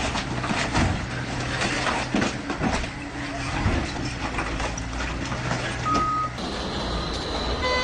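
Wheeled excavator's engine running as its grapple crushes and tears a truck's cab and box body, with repeated cracking and crunching of metal and panels. A short beep sounds about six seconds in, and the sound then changes abruptly to a steadier background with a few beeps.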